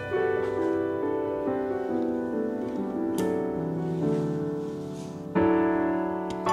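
Background solo piano music playing slow, held notes, with a louder chord struck about five seconds in.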